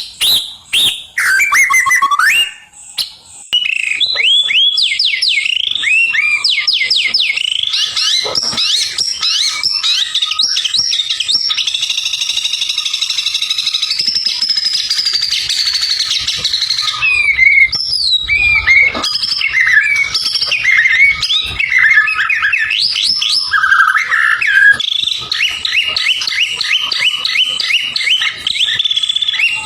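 White-rumped shama (murai batu) singing in full song: a long, varied run of quick rising whistles repeated several times a second, a sustained trill, and chattering phrases.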